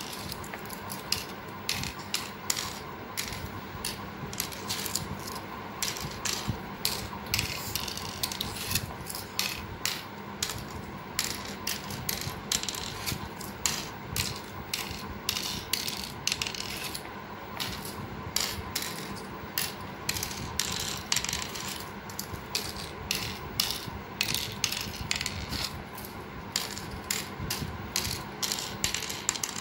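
Cowrie shells clicking as they are dropped one by one into the cups of a pallanguzhi board, a quick, uneven run of small clicks, a few each second.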